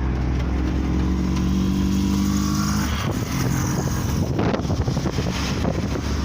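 Engine and road noise of a moving vehicle: a steady engine note for about three seconds, then a rougher rumble with road and wind noise.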